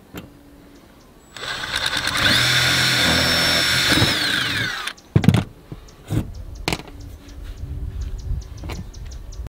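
Cordless drill driving a screw through the RV roof into the metal roof channel. The motor's whine climbs in pitch, holds steady for about two seconds, then winds down about halfway through. A few knocks and clicks follow.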